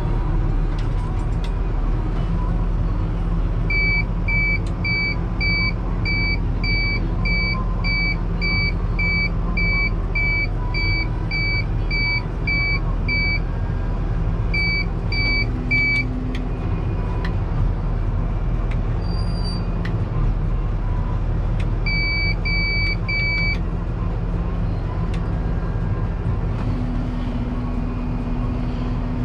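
Deutz-Fahr 6185 TTV tractor's six-cylinder diesel running steadily, heard from inside the cab. An electronic beeper sounds about two short beeps a second for several seconds, then twice more in groups of three.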